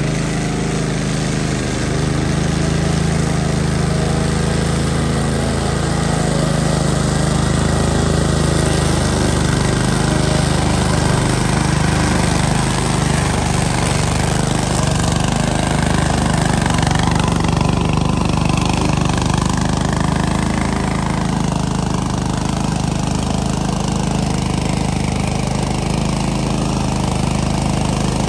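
Engine of a DR Field & Brush walk-behind mower running steadily.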